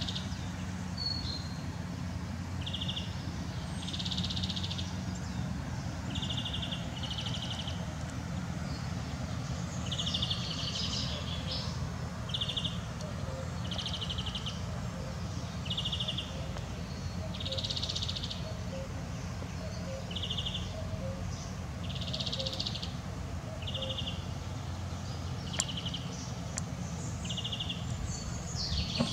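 Songbirds singing: short trilled phrases repeat every second or two, with an occasional longer, higher phrase from another bird. A steady low rumble runs underneath.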